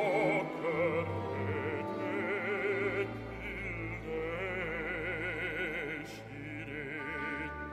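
Operatic baritone singing a sustained line with wide vibrato, moving through several held notes, over an orchestral accompaniment with low sustained strings underneath.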